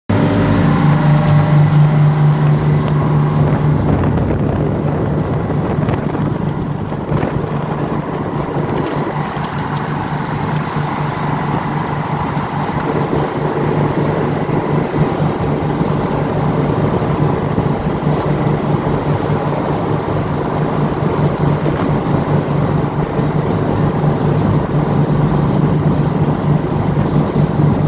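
A boat's engine running steadily under way, with wind buffeting the microphone.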